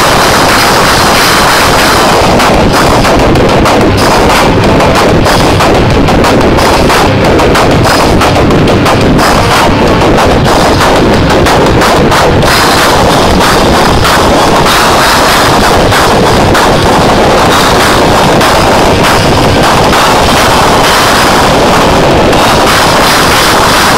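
Rock band playing live at full volume, led by fast, hard-hit drums and cymbals over electric guitar, with rapid strikes through most of it. The sound is overloading the phone's microphone into a flat, distorted wash.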